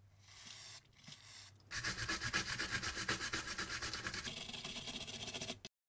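Two short, faint hisses of DeoxIT contact cleaner sprayed into an IC socket, then a small brush scrubbing the wet socket contacts in rapid, even strokes for about four seconds.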